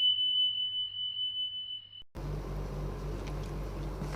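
A steady, high-pitched electronic beep, one unbroken tone that cuts off abruptly about two seconds in. It is followed by a steady low hum of room noise with a few faint ticks.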